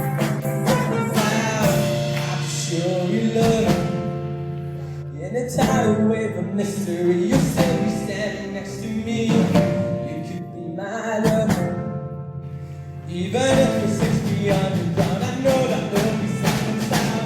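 Upbeat pop song playing: a steady drum beat under sustained synth notes and singing.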